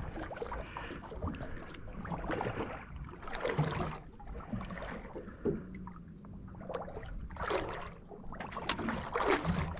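Water lapping and slapping against the hull of a small boat, in irregular splashes, with a faint low hum in the middle.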